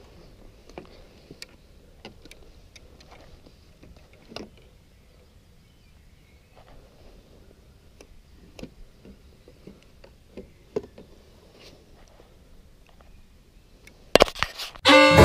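Scattered faint clicks and taps of a fishing rod and tackle being handled on a wooden raft, over quiet outdoor ambience. Near the end a sudden loud burst, then music with fiddle and guitar starts.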